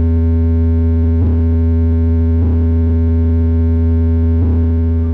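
Loud electronic music played through a carnival 'horeg' sound-system rig: one deep synthesizer bass note held steady, with a few faint hits over it.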